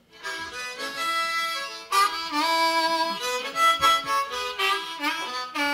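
Harmonica cupped in both hands against a microphone, starting up at once with chords and held notes, one note bent down and back a couple of seconds in: the opening of a blues train piece.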